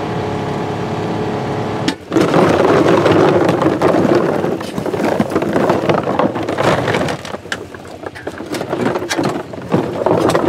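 A side-by-side UTV's engine runs steadily for about two seconds, then cuts off abruptly. It gives way to loud rustling and clattering as hard plastic duck decoys and their metal stakes are pulled from a stack and knocked together.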